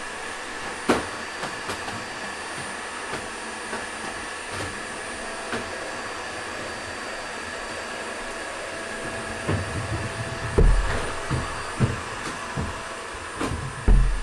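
Toshiba VC-BK750X vacuum cleaner running with a steady whine, with sharp clicks and knocks scattered throughout. Heavier knocks come in the second half, the loudest about ten and a half seconds in and right at the end.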